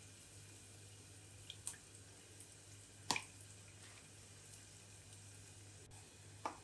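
Sliced onions frying in a little oil in a saucepan, giving a few sparse sharp pops over a faint low steady hum; the loudest pop comes about three seconds in, and another comes near the end.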